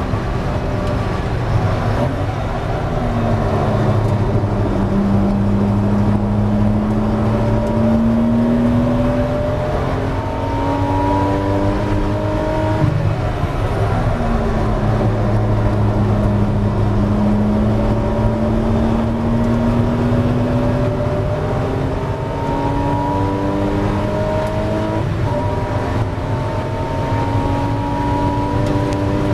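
Porsche 986 Boxster S's 3.2-litre flat-six engine under racing load, heard from inside the cabin with road and wind noise. The engine note climbs steadily through the revs, drops about 13 seconds in as the car brakes, then climbs again, with another gear change about 25 seconds in.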